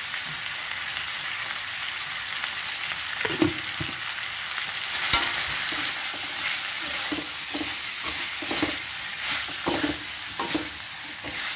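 Meat frying with a steady sizzle in a metal wok while a metal spatula stirs and turns it. From about three seconds in, irregular scrapes and knocks of the spatula against the wok sound over the sizzle.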